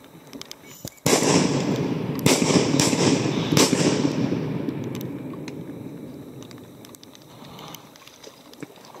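A string of shotgun shots, about four in under three seconds starting about a second in, each with a long echo that rolls away and fades over several seconds.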